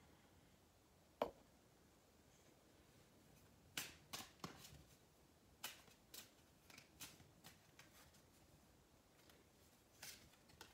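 A Lenormand card deck being shuffled by hand: scattered soft clicks and flicks of the cards, a sharper one about a second in and a small cluster near four seconds, over near silence.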